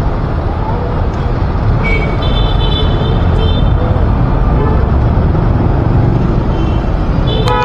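Busy street traffic: a steady, loud rumble of vehicles, with a horn sounding about two seconds in and another short horn blast near the end.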